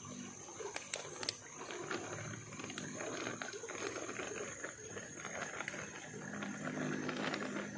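Fast-flowing shallow river water rushing steadily around a hand held in the current, with a few faint clicks.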